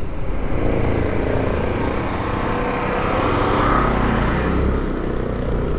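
Motorcycle engine running steadily while riding, its hum slowly rising and falling in pitch, over a haze of wind and road noise.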